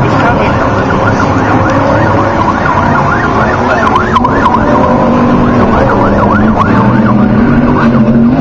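Several off-road race trucks' engines revving hard at once, their pitches rising and falling quickly as the throttle is worked.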